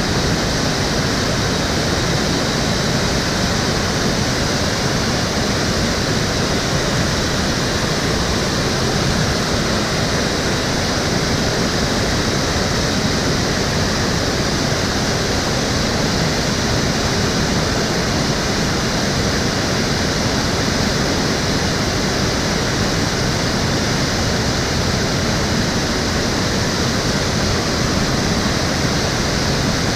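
Water of the Cheonggyecheon stream flowing, a steady rushing hiss with no breaks.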